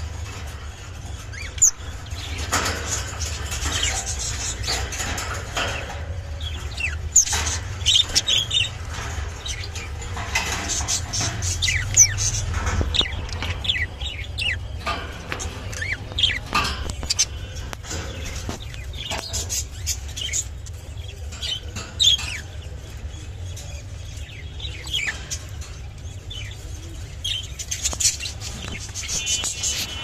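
Lutino budgerigars chirping and chattering in many short, quick notes, over a steady low hum.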